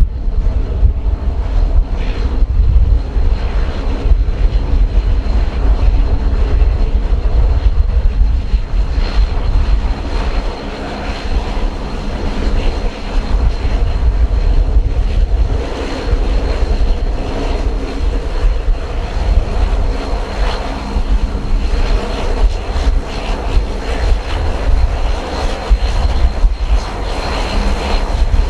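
Airliner engines at takeoff power, a steady high whine over a heavy rumble, heard through strong gusting wind buffeting the microphone.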